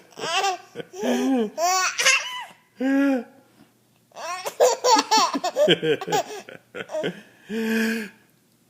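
Baby laughing in several bouts, with a short pause about four seconds in and a held laughing note near the end.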